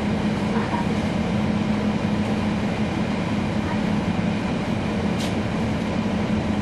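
Cummins ISL9 diesel engine of a 2012 NABI 40-SFW transit bus running with a steady low hum over road and body noise, with a faint click about five seconds in.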